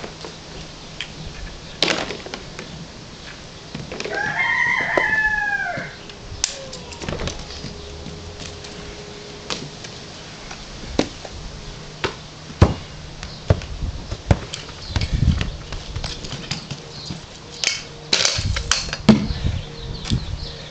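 Irregular clacks, knocks and low thumps of skill toys being caught, set down and handled: wooden toys, balls, a frisbee, and near the end a quick clatter as the unicycle is grabbed. About four seconds in, a long rising-and-falling call sounds for about two seconds.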